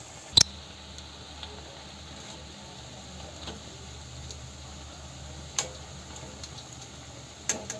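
Oil sizzling steadily as urad dal vadas deep-fry in a kadai on a low flame, so the carrot inside cooks through. Sharp clicks of a wire skimmer against the pan, the loudest about half a second in and more near the end.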